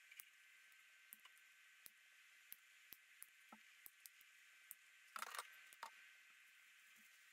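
Faint, scattered clicks and snaps of side-cutting pliers nipping pieces off a dried papier-mâché skull, with a louder clatter about five seconds in.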